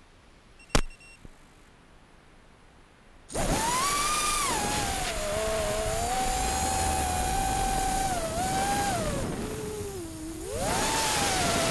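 A 5-inch FPV quadcopter's four T-motor Blackbird V2 2800kv brushless motors on a 6S battery spool up suddenly about three seconds in as it takes off. They go on as a loud, steady high whine that rises and falls with throttle, dropping low briefly near the end before climbing back. Before takeoff it is near quiet apart from one sharp click.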